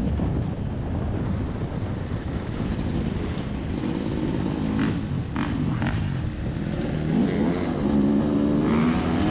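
Off-road rally vehicle's engine running under way with heavy rumble. A few sharp knocks come around five to six seconds in, and the engine note climbs as it revs up near the end.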